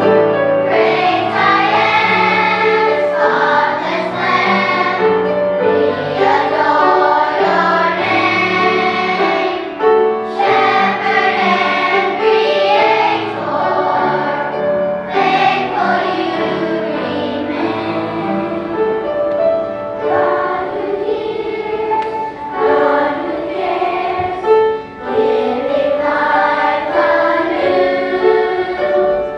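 A young children's choir singing with piano accompaniment.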